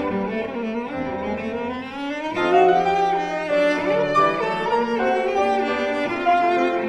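Orchestral music: sustained bowed strings, violins over cellos, with notes changing every second or so.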